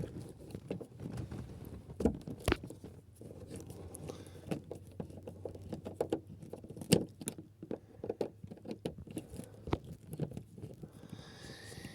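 Scattered small clicks and scratches from a hand screwdriver backing out a car grab handle's mounting screw, with light knocks of the plastic handle being worked loose.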